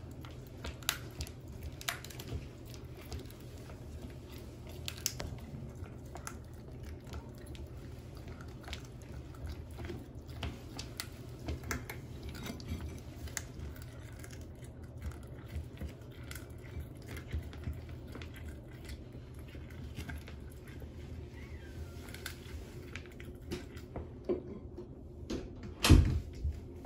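Cat chewing and gnawing a raw duck foot, a run of small irregular clicks and crunches. One loud thump near the end.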